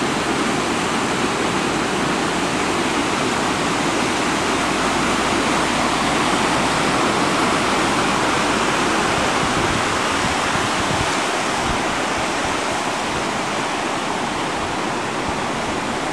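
Creek rushing over rocks in white-water rapids: a loud, steady rush of water.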